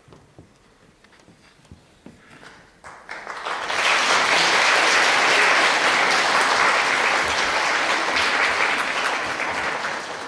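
Audience applause: after about three seconds of near-quiet with a few faint clicks, clapping starts up about three seconds in, quickly grows to a full, steady applause, and begins to fade near the end.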